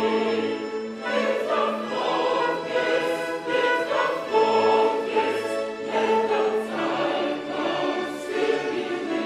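A mixed choir singing a hymn in parts, held notes in phrases of a second or two, accompanied by violins and electronic keyboards.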